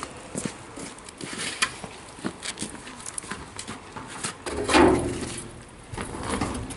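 Handling noise from a paddock vacuum's large corrugated plastic suction hose being lifted and laid against its steel collection tub: scattered knocks, scrapes and taps, with one louder knock about five seconds in.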